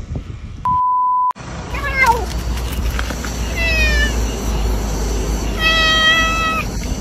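Domestic cat meowing three times over a steady low wind rumble on the microphone. The first two meows fall in pitch and the last is longer and held level. Earlier there is a steady high electronic beep lasting about half a second.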